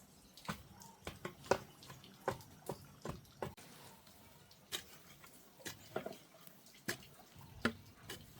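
A series of irregular sharp clicks and light knocks, about two a second, some with a short ringing plop.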